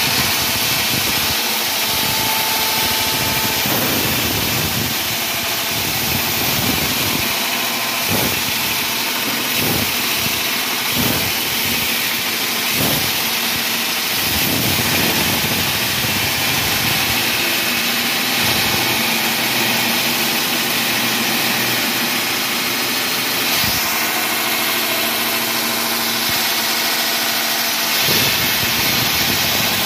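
Wall-sawing equipment running: a loud, steady machine drone with a hiss, with a few brief knocks about eight to fourteen seconds in.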